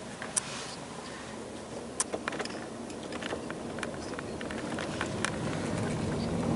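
Road and engine noise heard inside a taxi's cabin as it drives, with a scattering of sharp, irregular clicks. The noise grows louder toward the end.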